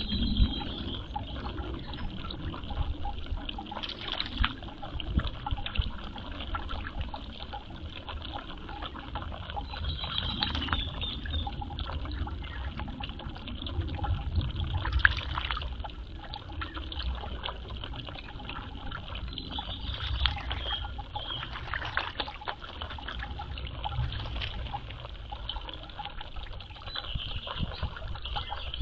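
Water trickling continuously, with short splashes now and then.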